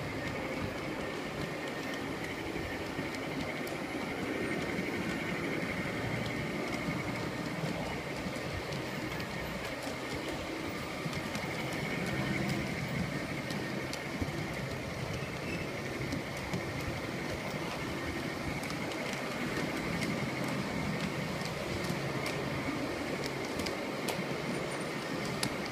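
G-scale battery-powered model diesel locomotives running in multiple unit with a grain train: steady diesel engine sound from their Phoenix P8 sound systems, turned down low, mixed with the running noise of wheels and motors on the track and faint clicks.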